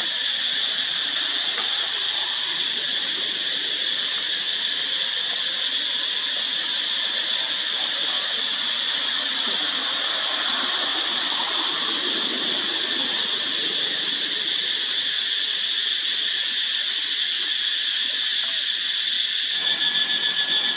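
Cicadas giving a continuous high-pitched drone. A little before the end a closer cicada takes over with a louder, rapidly pulsing buzz.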